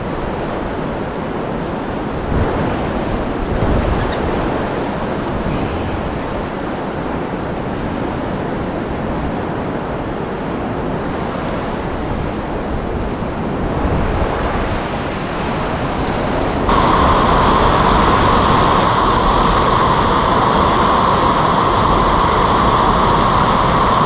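Steady rushing of fast, high river rapids. About 17 seconds in it jumps to a louder, brighter rush.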